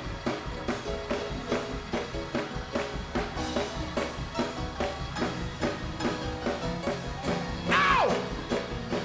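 Church praise-break music: a drum kit playing a fast, steady beat under held keyboard chords. Near the end a voice cries out, sliding down in pitch.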